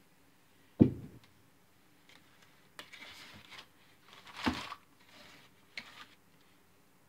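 Handling on a countertop: a sharp thump about a second in, then crinkling and rustling of plastic and paper plates, a second thump around the middle, and a short crinkle near the end.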